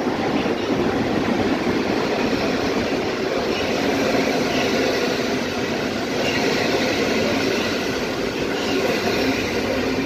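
Intercity passenger coaches behind an electric locomotive rolling past along the platform as the train pulls in: steady, unbroken noise of wheels running on the rails.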